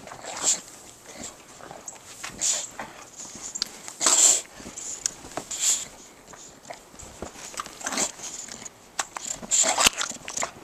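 English bulldog making excited noises while playing in deep snow, among irregular swishes and crunches of snow being kicked and trodden; the loudest bursts come about four seconds in and again near the end.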